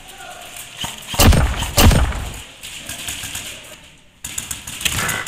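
Two loud thumps, one a little over a second in and another just under a second later, then lighter clicks and rustling near the end.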